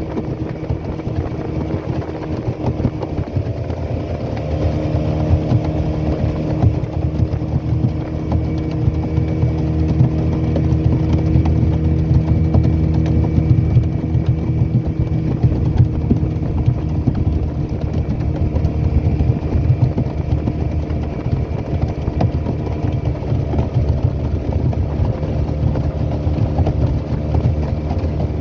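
Small boat's motor running steadily under way, a constant engine drone with no change in speed.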